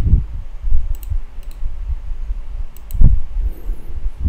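A computer mouse clicking several times, in pairs about a second in and again near three seconds, over a steady low rumble with a couple of soft thumps.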